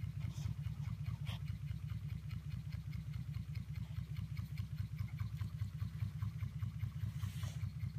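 Small model Stirling hot-air engine running steadily on its spirit burner: a low, rapidly pulsing hum with faint light ticks from the mechanism. A short hiss-like noise comes near the end.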